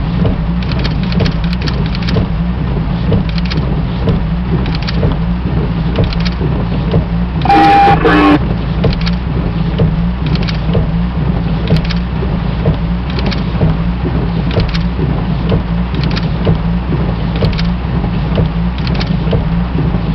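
Steady, loud drone of a light aircraft's engine and cabin in flight, with scattered brief clicks and crackles. A short, louder radio burst comes about eight seconds in.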